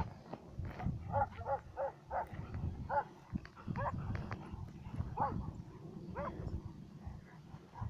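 A dog barking repeatedly: about a dozen short, fairly high barks at irregular intervals, with low rumbling noise underneath.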